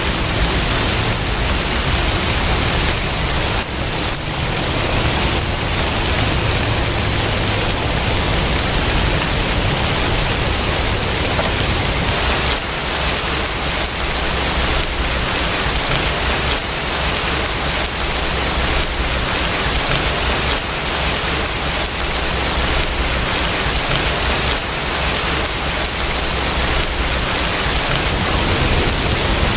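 Steady rain falling: an even hiss of water that keeps up without a break.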